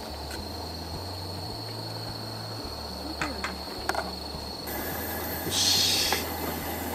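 Dutch oven of clams steaming in white wine over the heat: a steady low rumble with a few light clicks, and a short hiss about five and a half seconds in.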